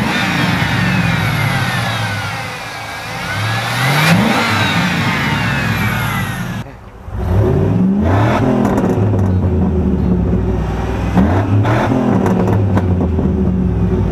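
5.3L Vortec V8 of a GMC Sierra, just fitted with a throttle body spacer, running and being revved. First there is one slow rise and fall of revs with a high whine over it. Then, after a cut, the exhaust note is heard through a single-in dual-out exhaust, with two quick blips of the throttle.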